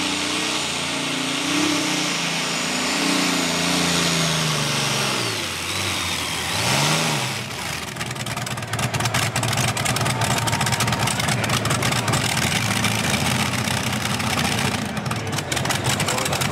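Supercharged modified pulling tractor engines running hard under load. The first tractor's engine note falls steadily as it comes off the pull. After a short rev up and down, a second modified tractor's engine runs at full power with a rough, rapid crackle.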